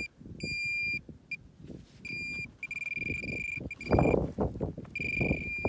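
Handheld metal-detecting pinpointer buzzing, a steady high tone that switches on and off again and again as the probe finds a target in the dug soil. Under it are irregular rustling and knocking noises, loudest about four seconds in.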